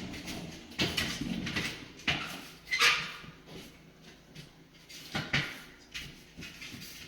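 A series of sharp knocks and clunks, about five, spread irregularly, with quieter rustling and handling noise between them.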